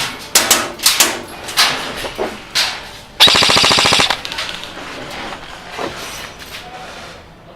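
Airsoft guns firing in a firefight: scattered single shots in the first few seconds, then a rapid full-auto burst lasting under a second about three seconds in, followed by fainter scattered shots.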